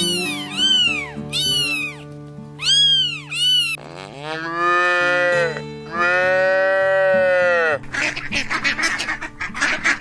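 A cat meowing about five times in short high calls, then a cow mooing twice in long calls, then a duck quacking rapidly, over background music with steady low notes.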